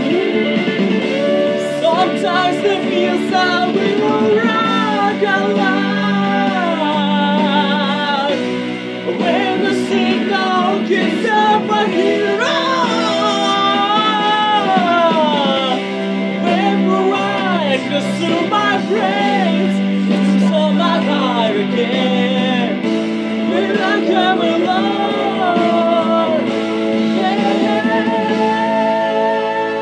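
A man singing, with vocal runs that slide up and down in pitch, over an instrumental backing track.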